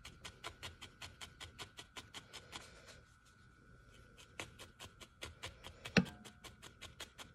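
Felting needle stabbing wool down into a foam pad, a quick even tapping of about five pokes a second that slackens briefly about three seconds in. A single louder knock about six seconds in.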